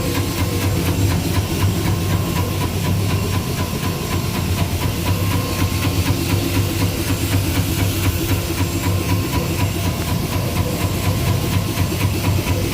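CNC PCB drilling machine running: a steady low motor hum under a broad hiss, with a thin steady whine above.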